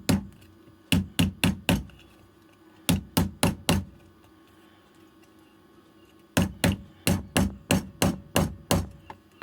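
Small rubber mallet tapping a part down onto an e-bike battery pack, in short runs of about four quick taps, then a longer run of about ten taps near the end. The part is being forced onto fittings it will not seat into by hand.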